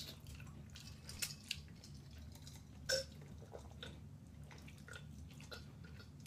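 Quiet eating of chicken: a few soft, wet mouth clicks and smacks, the clearest about three seconds in, over a faint low hum.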